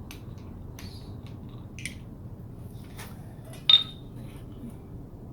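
Metal tools and bicycle crank parts being handled: scattered light clicks, then one loud ringing metal clink about three and a half seconds in.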